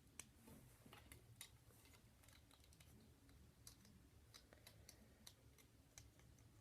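Faint, irregular clicks of plastic Lego bricks being handled and pressed together, over a low steady room hum.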